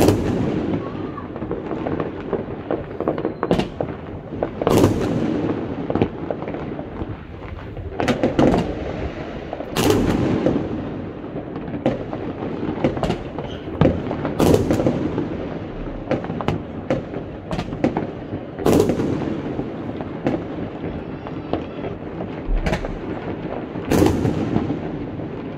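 Fireworks going off all across a town: loud sharp bangs every few seconds, over a constant crackle and rumble of many smaller, more distant fireworks.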